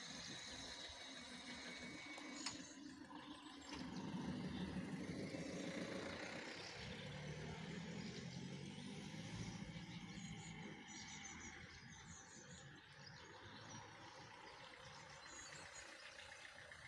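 Faint motor vehicle engine running, a low rumble that swells about four seconds in and fades after about twelve seconds, with a single click at about two and a half seconds.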